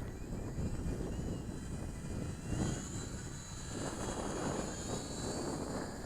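Twin small electric motors and propellers of a micro RC P-38 model airplane whining in flight, their pitch rising about two and a half seconds in as the throttle comes up. Wind rumbles on the microphone underneath.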